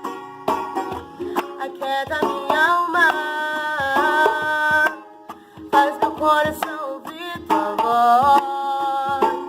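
Music: a song with a melodic line over a steady beat of hand drums. The melody drops out briefly at about the midpoint.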